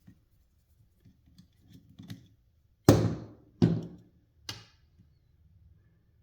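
Three sharp knocks, each with a short ringing tail, a little under a second apart with the first the loudest, as hard tools or parts are set down or struck on a workbench; faint small clicks of handling come before them.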